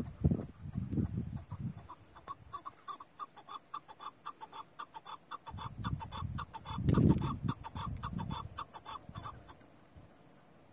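Chukar partridge calling: a long, fast run of clucking notes, about six a second, that stops a little before the end. Low rustling and bumping close to the microphone comes near the start and, loudest, a little past the middle.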